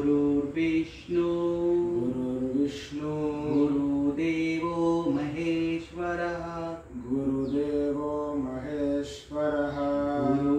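A low voice chanting a melodic mantra, stepping from note to note every half second or so, with no breaks.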